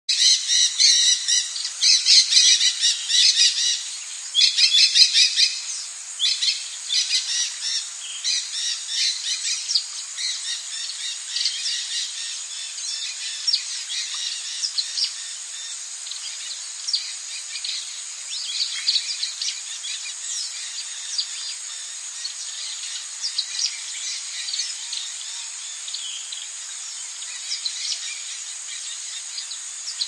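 Small songbirds chirping in quick repeated trills, densest and loudest in the first six seconds, then sparser chirps, over a steady thin high-pitched whine.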